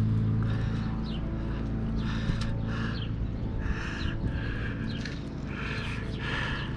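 A steady low hum with about eight short, harsh animal calls over it, roughly one a second.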